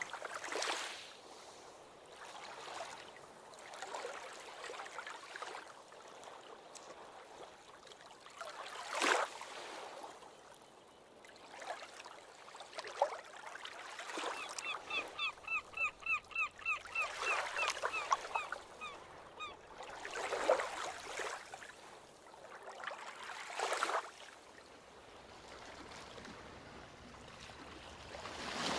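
Ocean waves washing onto a beach, each wash swelling and fading every few seconds. About halfway through, a bird calls for several seconds in a fast string of short, repeated notes.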